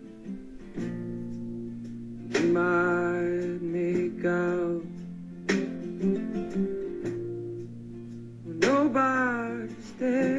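Music: guitar with held, strummed chords, and a voice singing over it twice.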